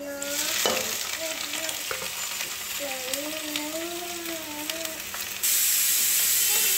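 Sliced onions dropped into hot oil in a kadhai, sizzling as they fry, with the scrape and clicks of a spatula stirring them. About five seconds in the sizzle turns louder and steadier.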